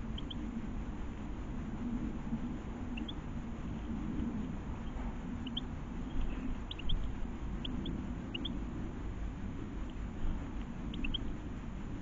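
Goldfinches calling in short, high chirps, scattered and often in quick twos and threes, over a steady low background rumble.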